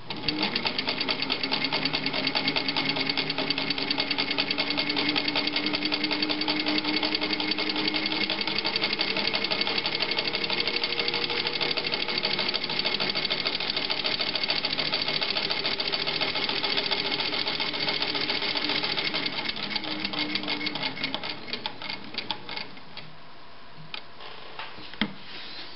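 Singer 15-91 sewing machine, with its gear-driven potted motor, stitching through fabric at an intermediate stitch length. A fast, even clatter of needle and feed runs over a motor whine that climbs as the machine gets up to speed. Both slow and stop a few seconds before the end, followed by a few single clicks.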